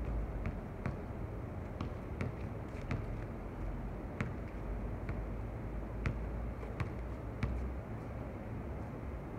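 A basketball bouncing on an outdoor hard court: short, sharp knocks at uneven spacing, about a dozen in all, over a steady low rumble of background noise.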